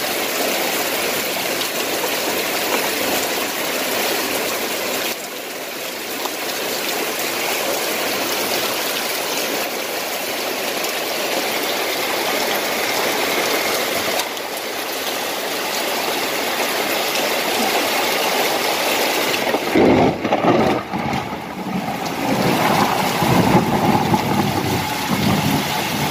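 Heavy rain pouring steadily, a dense even hiss. About twenty seconds in, a louder, uneven low rumbling joins it.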